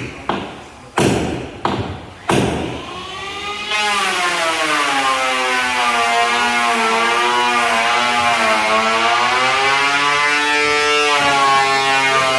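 Four sharp knocks about half a second apart, then a motor starts about four seconds in and keeps running, its pitch wavering slightly up and down.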